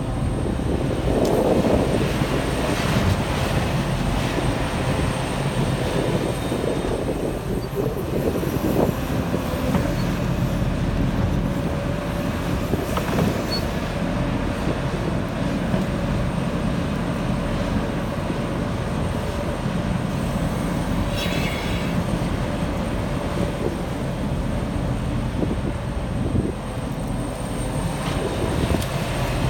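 Liebherr 974 crawler excavator's diesel engine running steadily under load as it digs and swings, with a rush of soil pouring from the bucket into a truck near the start.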